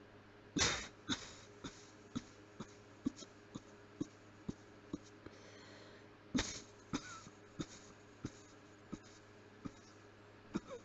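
A person coughing with the mouth closed, in two bouts: each opens with one strong cough about a second and about six seconds in, then trails into a run of short, fainter coughs roughly half a second apart.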